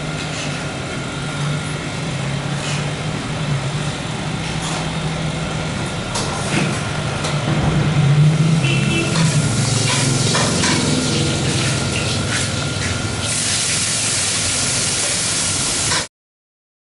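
Street food shop ambience: a steady hum of engines and traffic from the street outside, with scattered clinks of a metal spoon on a plate. A louder steady hiss comes in near the end, then the sound cuts off suddenly.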